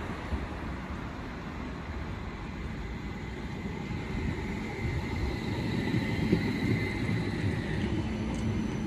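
CAF Urbos 100 low-floor tram running past on the rails, its wheels rumbling and getting louder as it comes close. A faint high electric whine sinks slightly in pitch around the middle.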